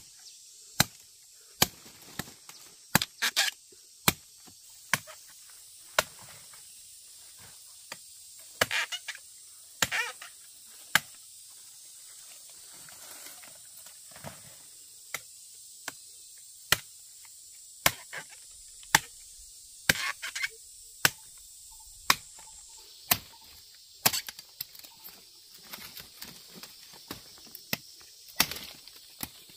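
Sharp snaps, about one a second and sometimes in quick clusters, as small fruit stems are broken by hand off a harvested palm fruit bunch. Insects buzz in a steady high hiss underneath.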